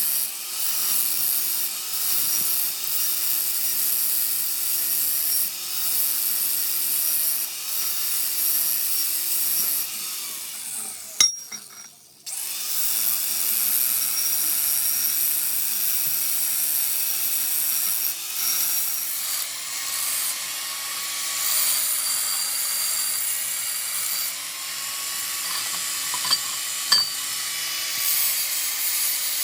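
A workshop machine or power tool running steadily, its motor humming with a slight waver under a loud, high, hissing cutting or grinding noise. The sound breaks off briefly about eleven seconds in, then resumes, with a couple of sharp clicks near the end.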